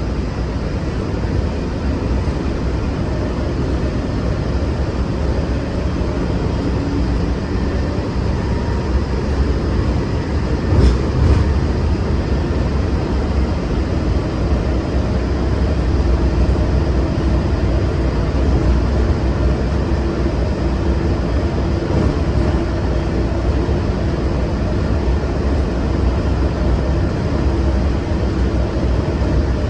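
Walt Disney World monorail running at speed, heard from inside the car: a steady low rumble with a faint steady whine, and a brief bump about eleven seconds in.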